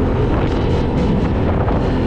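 Off-road vehicle engine running while driving, with wind on the microphone and a few brief knocks in the first half.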